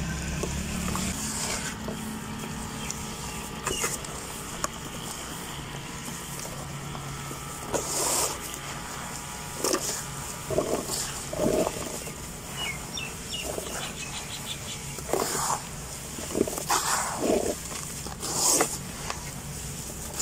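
Hands squeezing and crumbling wet red dirt in a tub of muddy water: irregular wet squelches and gritty crunches, louder and more frequent in the second half.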